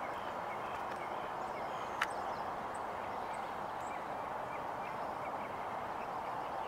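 Faint short bird calls repeating over a steady rushing background noise, with one sharp click about two seconds in.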